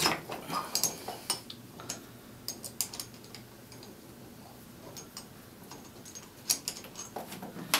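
Light metal clicks and taps, irregular and scattered, as an Allen wrench loosens the two center screws on a Red Rock Micro rig's counterweight plate.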